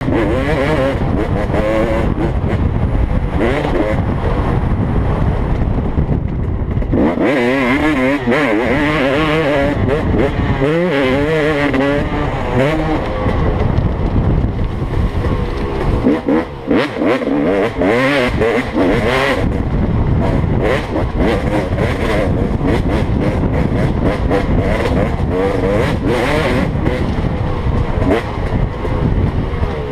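Dirt bike engine under hard riding, revving up and dropping back again and again as it accelerates, shifts and rolls off through the turns, over a steady low rush of wind and engine rumble.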